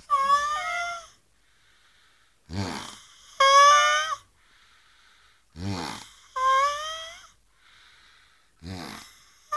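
Snoring that repeats about every three seconds: a low, fluttering snore followed each time by a loud, high, wavering whistle.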